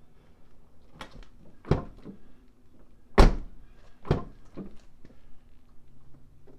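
A handful of sharp knocks and thuds at a pickup truck's door and door jamb as a plastic jam handle is fitted, the loudest about three seconds in.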